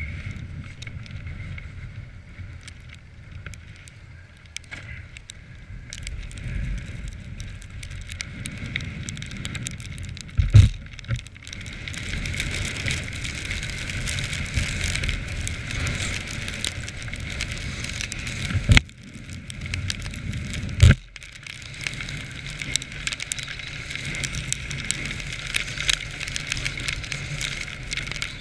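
Quad bike (ATV) running on a snowy trail, with a steady engine rumble, constant light rattling and crackling, and three heavy knocks, one about ten seconds in and two close together around twenty seconds in.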